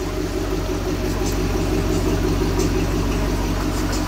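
1979 Oldsmobile Cutlass engine idling steadily, heard close to the exhaust tip as an even, low pulsing.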